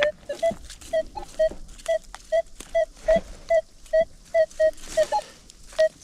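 Minelab Manticore metal detector beeping over a buried target, short repeated beeps about three a second on one steady mid-pitched tone, read as a possible penny signal.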